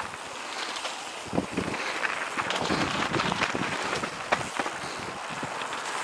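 Mountain bike descending a dirt singletrack: tyres rolling over dirt and leaves, with frequent sharp knocks and rattles from the bike over bumps.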